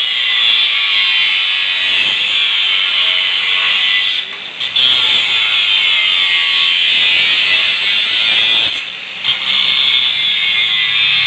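Electric welding arc burning holes through steel: a steady hiss that breaks off briefly twice, about four and nine seconds in.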